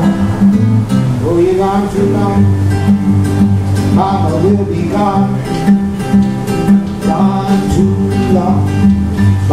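Fingerpicked country blues on a classical-style acoustic guitar: a steady, repeating bass under a melody picked on the higher strings.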